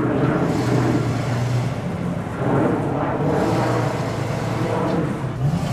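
Truck engine running as it reverses at low speed, the revs swelling up twice and easing back.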